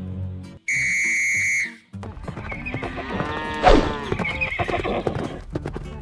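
A steady high-pitched tone, about a second long, then a cartoon horse whinnying over and over, rising and falling in pitch, with hooves clip-clopping.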